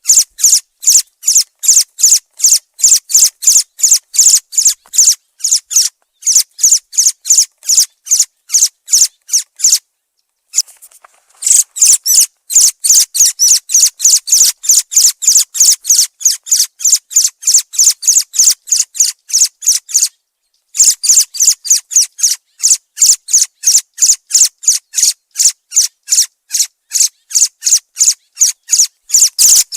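Thrush call: a loud, fast, even series of short, sharp high-pitched notes, about four or five a second, broken by two brief pauses.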